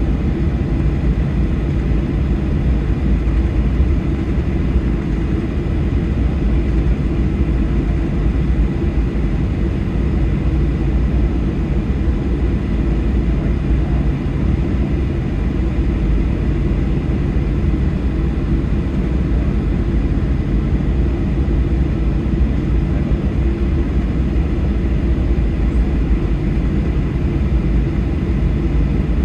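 Boeing 737-800 cabin noise while taxiing, heard from inside the cabin beside the wing: the CFM56-7B turbofans running at low taxi thrust as a steady low drone, with a faint steady high whine.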